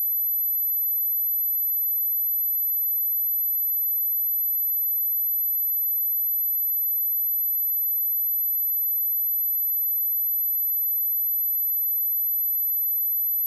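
A steady, unbroken high-pitched 11993 Hz sine-wave test tone, a single pure tone at constant level, used to test speakers and to clear water and dust from them.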